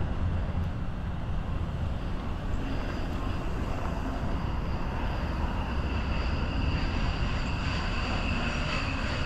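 Steady outdoor rumble and hiss, with a faint high whine that comes in a few seconds in and holds, in the way of distant traffic or an aircraft.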